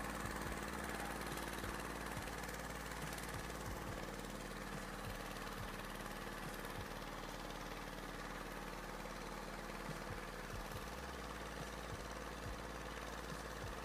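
An engine running steadily with an even hum, unchanging throughout.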